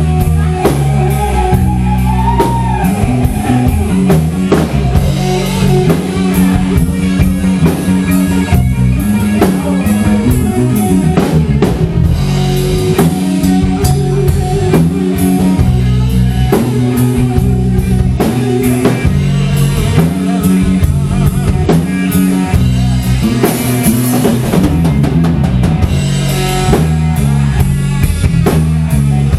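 Rock band playing live: a drum kit keeping a steady beat under bass and electric guitars, with a guitar line bending in pitch near the start.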